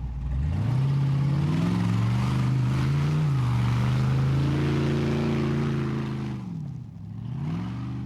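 A motor running: its pitch climbs over the first second, holds steady for about five seconds, then falls and climbs again near the end, like revving.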